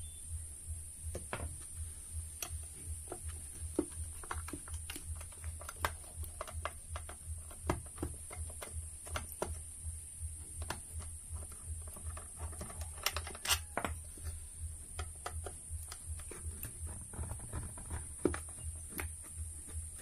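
Small scattered metallic clicks and ticks of a screwdriver working the screws on a ceiling fan's metal motor housing. Under them runs a steady low hum that pulses regularly a few times a second, with a faint high steady whine.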